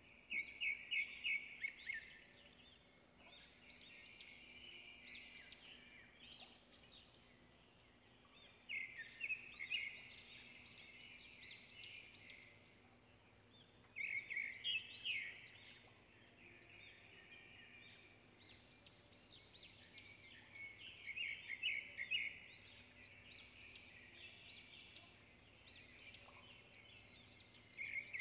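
Small bird chirping in short runs of quick repeated notes, one run every few seconds, over a faint steady hum.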